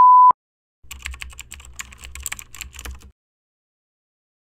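A steady high beep cuts off just after the start. About a second in, a quick run of computer keyboard typing clicks lasts about two seconds, with a low hum under it, then stops.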